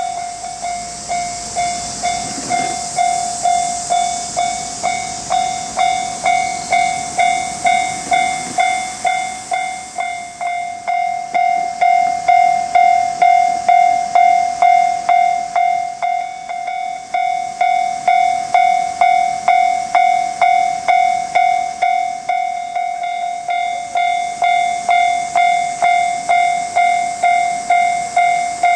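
Japanese railway level-crossing warning bell ringing over and over, an even electronic clang about twice a second, with a steady hiss under it.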